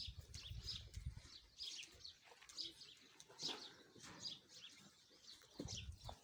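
Faint, high, short bird chirps repeating about twice a second.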